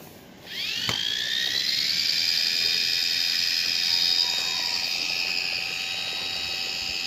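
Small electric motor of a USB mini portable washing machine switching on about half a second in: a high whine rises as it spins up, then holds steady.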